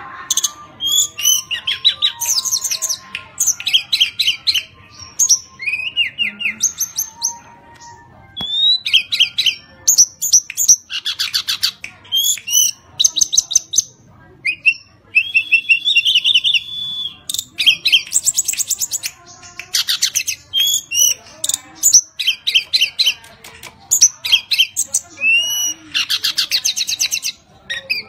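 Hill blue flycatcher singing steadily: loud phrases of fast, high warbling trills and slurred whistles, repeated one after another with short pauses between them.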